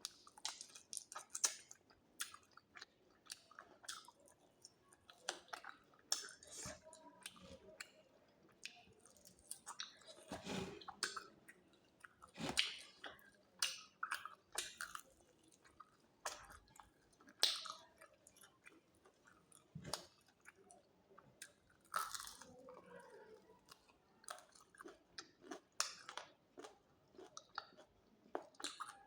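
A person chewing and biting food close to the microphone: irregular crunchy bites and wet mouth clicks, coming in clusters with short pauses.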